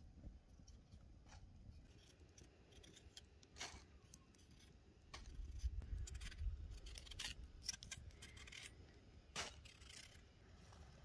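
Knife blade paring the skin off a raw potato: a string of short, soft cutting and scraping sounds. A low rumble swells in the middle and is the loudest thing heard.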